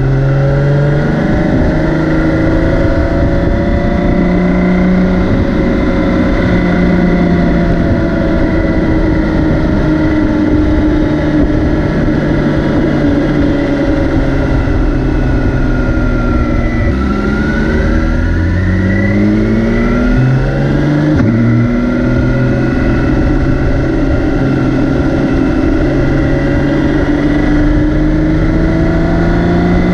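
BMW K 1600 B's 1,649 cc inline-six engine running under way at a fairly steady speed. About halfway through, the pitch drops and then climbs twice in quick succession as the bike accelerates through gear changes, before settling back to a steady note.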